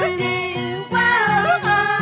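Andean herranza folk song: a high voice sings a held, wavering melody over a pulsing string accompaniment.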